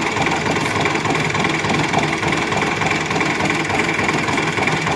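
Farm tractor's diesel engine running steadily at idle.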